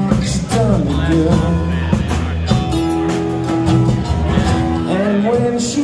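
A live rock band plays: strummed acoustic guitar, electric bass and drum kit, with a sung melody that holds a long note in the middle and slides into the next phrase near the end.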